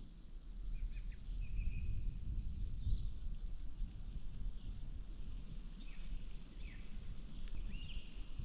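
Small birds calling in woodland: scattered short chirps, whistles and falling call notes, more of them towards the end, over a low steady rumble of wind noise.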